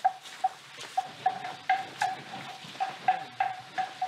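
Bell hung on an Asian elephant clanking as the elephant walks: short hollow notes at one fixed pitch, two or three a second in an uneven rhythm.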